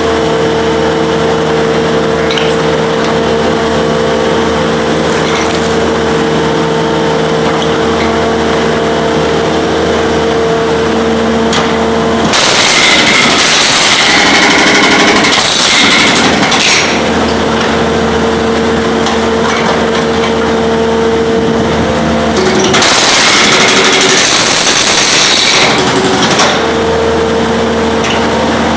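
Jackhammer breaking up a concrete slab in two loud bursts, one about twelve seconds in lasting some four seconds and another a little after twenty-two seconds lasting about three seconds. A steady machine drone runs between the bursts.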